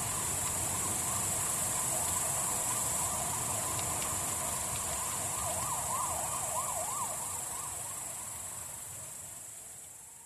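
A faint siren wailing rapidly up and down, clearest about six seconds in, over a steady high hiss. Everything fades out over the last few seconds.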